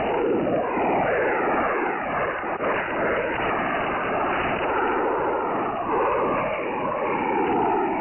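Shortwave radio in lower sideband receiving a Brazilian 'peskie' transmission of waterfall images: a dense, warbling mass of many tones gliding up and down at once over static, with the thin, narrow sound of a radio channel.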